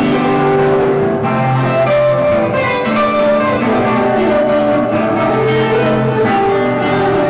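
Instrumental music led by a guitar, a melody of held notes that change about every second.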